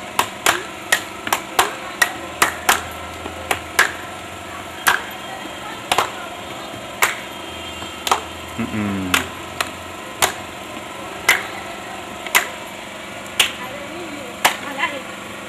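A series of sharp knocks, about three a second for the first four seconds, then slowing to a steady one a second. A brief falling tone sounds about eight and a half seconds in.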